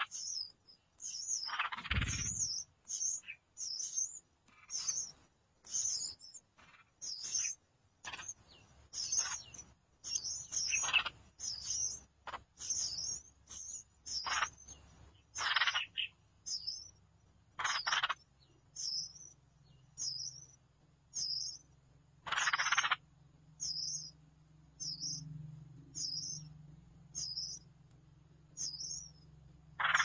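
Nestling birds begging: a long series of short, high chirps about once a second, with a louder, harsher call now and then (about 2 s in, and around 11, 15, 18 and 22 seconds in).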